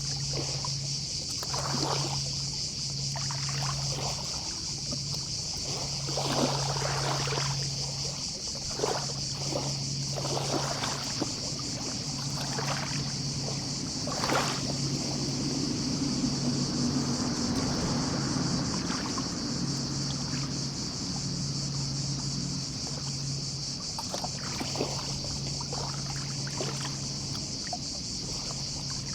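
Gentle sea waves lapping and breaking on the shore in irregular small surges every few seconds, over a steady chorus of distant cicadas. A low hum comes and goes underneath.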